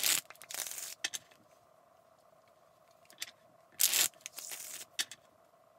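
A deck of playing cards being riffle-shuffled on a wooden table, twice, about four seconds apart: each time a sharp rush of cards followed by about half a second of rapid fluttering as the cards interleave and are bridged together.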